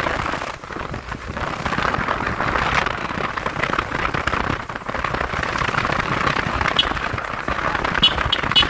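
Steady rush of wind and road noise while riding a Yamaha R15 V4 motorcycle at highway speed, with a few sharp clicks near the end.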